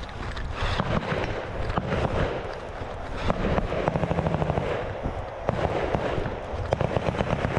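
Bursts of rapid fire from a belt-fed machine gun: short strings of shots about halfway through and again near the end, over near-continuous crackling gunfire.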